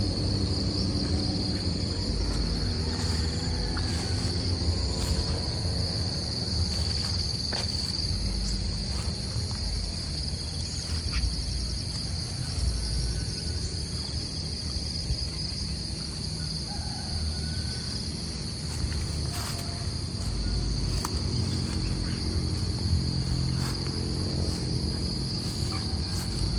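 A steady, high-pitched drone of insects chirring in the vegetation, holding one unbroken tone, over a steady low rumble and a few faint clicks.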